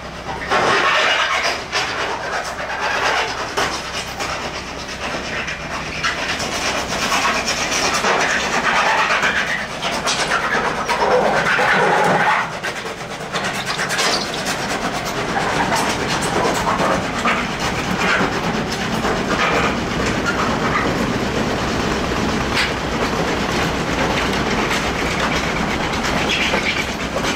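Kubota L4701 tractor's diesel engine running as it drives with its loader forks raised, with a rattling clatter of many small knocks; it gets louder for a moment about a second in and again around twelve seconds in.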